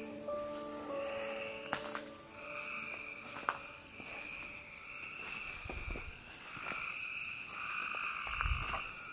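Night insects: crickets chirping in a steady run of rapid, evenly spaced high pulses, over a lower insect chorus that swells and fades in waves. A few low thuds come about six and eight and a half seconds in.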